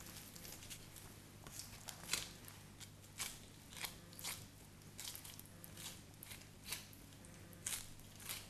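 Knife cutting and meat being pulled and torn away from a fallow deer's neck bones: faint, irregular crackling snicks, about a dozen, over a low steady hum.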